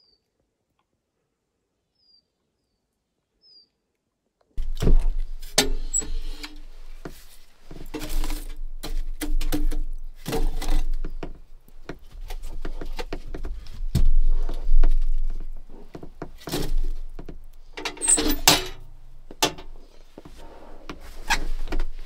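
A few faint bird chirps, then from about four and a half seconds in a run of irregular knocks, thuds and clatter from handling things at a small metal wood-burning stove, with a low rumble underneath.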